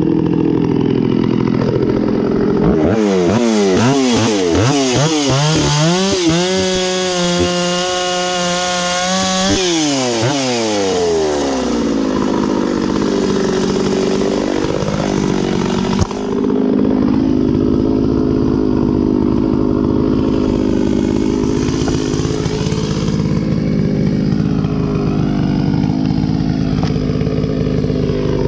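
Stihl 066 Magnum two-stroke chainsaw with a freshly rebuilt top end, working in hickory. It runs up to a high, wavering scream for several seconds, drops back about ten seconds in, then settles into steady, heavier running. There is a single sharp click about halfway through.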